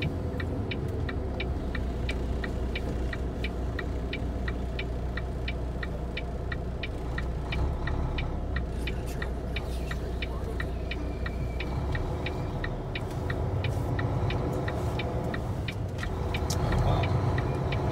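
Semi truck's diesel engine running, heard from inside the cab as a steady low rumble, with an even, quick ticking at about three ticks a second that fades out about two-thirds of the way through.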